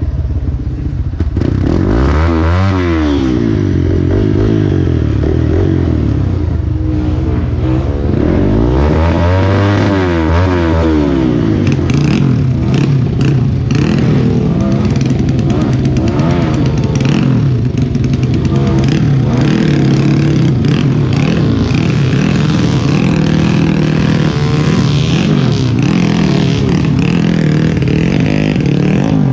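Trail motorcycle engine revving up and down twice, then running more steadily under load, with clattering knocks over it from about halfway through.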